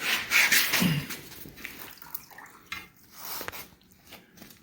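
Water splashing and dripping out of a stripped-down V8 engine, loudest in the first second and then trickling, with scattered light clicks of metal parts.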